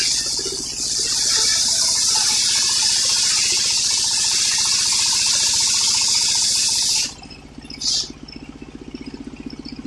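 A homemade circular sawmill blade cuts through old coconut-palm wood: a loud, steady hiss lasting about six seconds that cuts off sharply, followed by a brief second hiss. The engine driving the mill runs steadily underneath.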